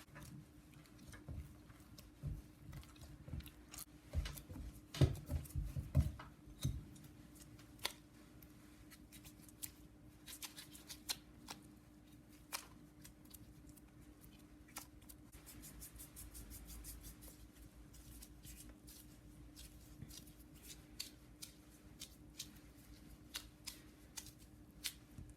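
Kitchen handling sounds during food preparation: many light clicks and snips, a cluster of soft thumps about five to six seconds in, and a faint steady hum.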